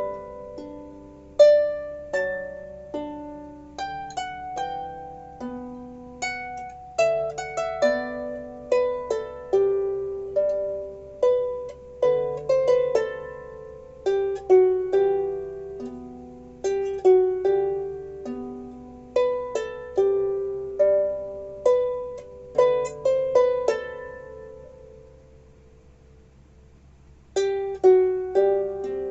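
Solo harp playing a slow melody over plucked bass notes, each note ringing and fading. About three-quarters of the way through, the notes die away for a pause of a few seconds, then the playing picks up again.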